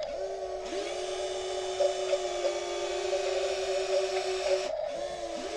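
Electric motors of a radio-controlled toy wheel loader whining as it raises its bucket. The whine rises in pitch as it starts, twice near the start and again after a brief break near the end, over a steady higher hum.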